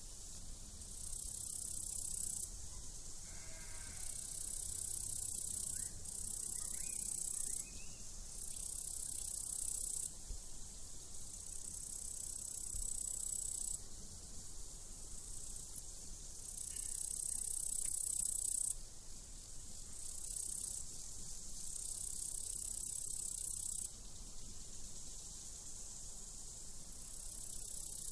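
Crickets trilling high-pitched in on-and-off spells of a second or two over a steady hiss, with a sheep bleating briefly about four seconds in.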